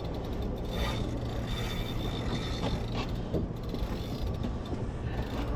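A fishing boat's engine running steadily, a low drone under wind and water noise, with a couple of faint knocks.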